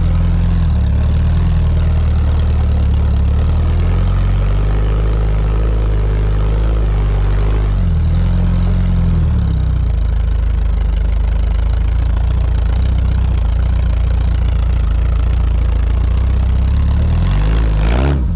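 Sporting-trials car engine running loudly at low, fairly steady revs as the car crawls over a grassy slope, its pitch shifting briefly about eight seconds in and rising just before the end.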